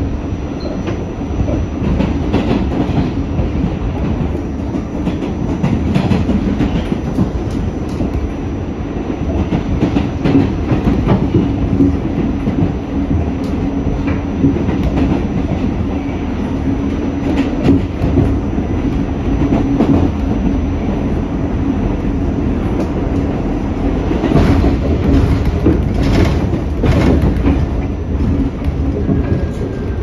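R46 subway car running on open track, heard from inside the car: a steady low rumble with the wheels clacking over rail joints, the clacks bunched together a few seconds before the end. Near the end a faint falling whine begins as the train approaches a station.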